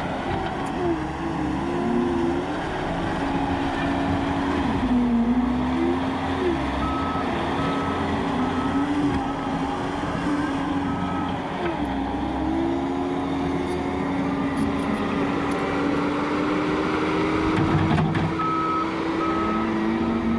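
John Deere 331G compact track loader's diesel engine running under load, its pitch rising and falling as the machine pushes and turns in dirt. The backup alarm beeps in two short runs, about a third of the way in and near the end, as the loader reverses.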